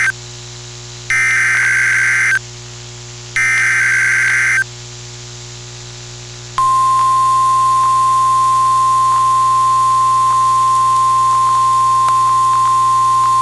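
NOAA Weather Radio alert tones announcing a new warning: the end of one SAME header burst, then two more bursts of shrill warbling digital data about a second apart. About six and a half seconds in, the steady 1050 Hz weather radio warning alarm tone starts and holds, with a few faint clicks near the end.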